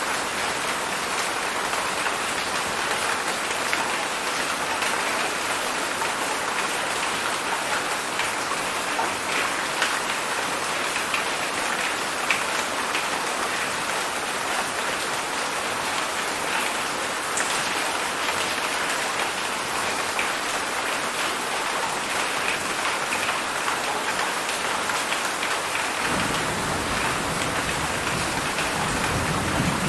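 Heavy rain pouring steadily, a dense even hiss of drops on surfaces. Near the end a low rumble of thunder joins in.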